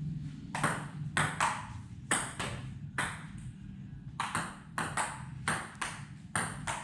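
Table tennis rally: a ping-pong ball clicking off the paddles and bouncing on the table, about two hits a second, with a short break about three seconds in before play picks up again.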